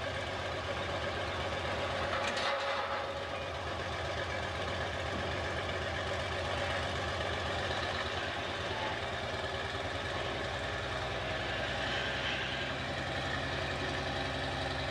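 Lima Model 65-T dragline's Cummins 220 diesel engine running steadily as the machine works its bucket, pulling harder and louder from about ten seconds in.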